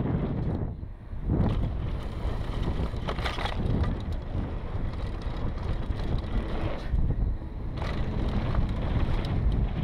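Wind rush on the action camera's microphone and the tyres and drivetrain of a Specialized Demo 8 downhill mountain bike rolling fast over a packed-dirt jump trail, with a clatter over rough patches a few seconds in and again near the end. The noise drops briefly about a second in, as the bike leaves the ground off a jump, and comes back on landing.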